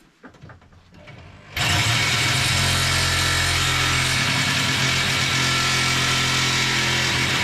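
A few light knocks, then about a second and a half in an angle grinder starts suddenly and runs steadily, loud, cutting through the lawnmower's front chassis beam.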